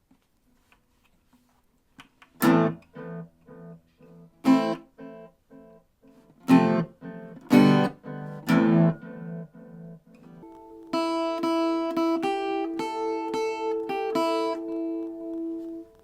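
Enya Nova Go SP1 carbon-fibre acoustic guitar played: after a short quiet start, a handful of separate strummed chords with pauses between them, then from about eleven seconds a run of picked notes that ring on together.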